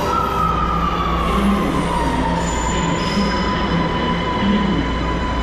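Electric metro train running alongside a platform: a loud, steady rumble of wheels on rail with a motor whine that falls in pitch over the first two seconds as the train slows, then holds steady.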